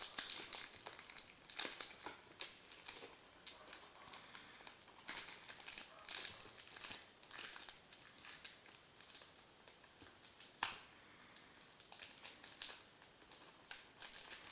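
A trading card pack's wrapper being crinkled and worked open by hand: irregular, fairly quiet crinkling and small crackles, coming in short bursts.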